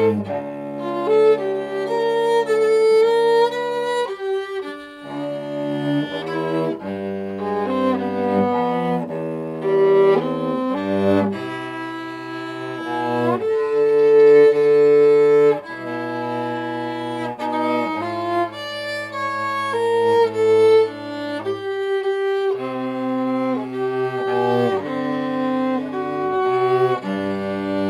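Violin and cello playing a duet, the cello bowing low held notes under the violin's melody, with brief pauses between phrases.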